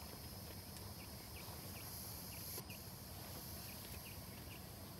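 Faint outdoor ambience: small birds chirping in short, repeated notes, about two a second, over a steady high insect-like hiss and a low rumble.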